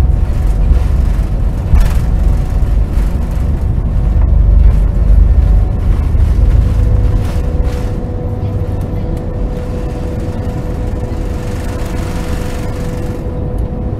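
Jet airliner on its takeoff roll heard from inside the passenger cabin: loud engine noise at takeoff power over a heavy rumble and a few thuds from the wheels on the runway. About halfway through the rumble eases as the plane lifts off, leaving a steady engine hum.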